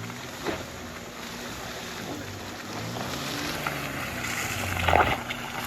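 A vehicle engine running and revving, its pitch rising and falling, with a sharp knock about five seconds in.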